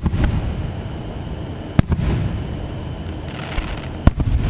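Aerial firework shells bursting: two sharp booms about two seconds apart, one near the middle and one near the end, each followed by a low rumble.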